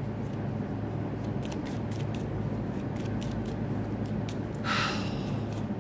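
Tarot cards being handled: a few faint clicks and a brief rustle near the end, over a steady low hum.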